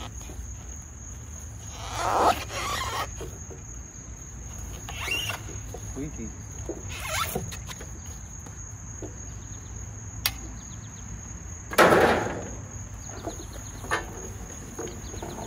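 Intermittent scraping and tearing bursts from stripping insulation off scrap copper pipe, with a sharp click near the middle and the loudest, longest burst about twelve seconds in. Insects drone steadily at a high pitch throughout.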